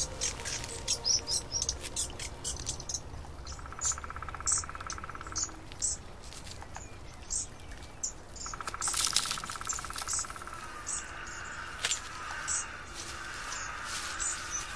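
Birds chirping in short, repeated calls, with an insect trilling twice for about two seconds each, around four and nine seconds in.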